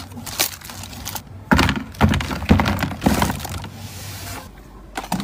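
Rolls of printed adhesive tape in plastic wrap being handled and a plastic basket of tape rolls moved: crinkling plastic and several dull knocks and thuds, the loudest between about one and a half and three seconds in.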